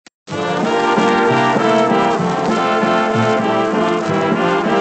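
Instrumental introduction of a Schunkelwalzer (swaying waltz), played by a dance band with brass to the fore, from a 78 rpm record. A small click comes just before the music starts.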